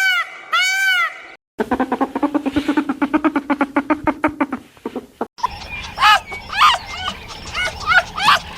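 Different farm animal calls cut one after another: repeated pitched calls at the start, then after a short break a fast pulsing low call for a few seconds, then many short high chirps.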